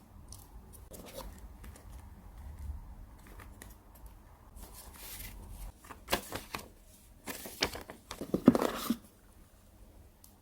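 Packaging being opened by hand: a few light clicks, then a run of tearing and rustling strokes in the second half, the loudest near the end.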